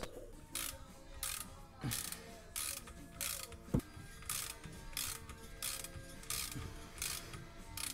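A hand ratchet worked back and forth in short strokes, a burst of pawl clicks about every two-thirds of a second, tightening the Torx bolts of a driveshaft flex disc.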